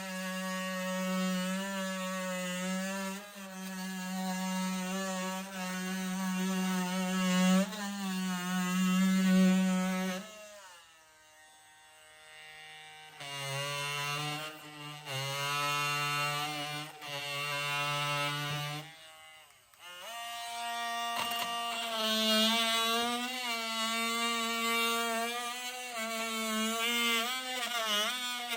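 Cordless Wallpro oscillating multi-tool running with a buzzing whine that wavers in pitch. It winds down about ten seconds in, then runs again at a lower speed with short stops, then runs again at a higher speed near the end.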